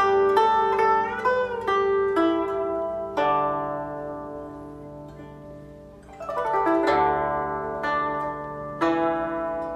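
Background music on a plucked zither: single plucked notes, one bent in pitch about a second in, then a note left to ring and fade for about three seconds, followed by a quick run of notes and more plucked notes.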